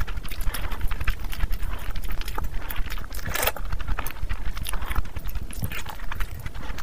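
Close-miked ASMR chewing of mutton curry and rice: wet, irregular clicking, smacking and squelching of food being chewed with the mouth full, with a louder wet burst about three and a half seconds in.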